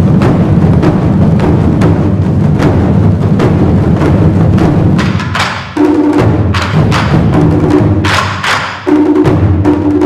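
Chinese drum ensemble, many drums struck with sticks in unison: dense, fast, continuous drumming for about five seconds, then the pattern breaks into separate accented groups of strokes with short pauses and ringing drumheads, with sharper, brighter strokes near the end.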